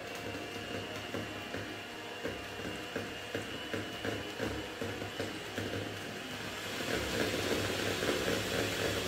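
Hand-held egg beater whisking eggs and sugar in a plastic mixing bowl, a fast steady rattle of the beaters in the bowl that gets louder about seven seconds in.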